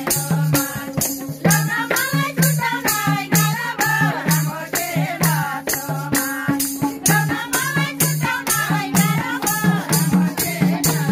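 Women singing a Nepali ratauli folk song together, with a tambourine jingling, hands clapping and madal hand drums keeping a fast, steady beat.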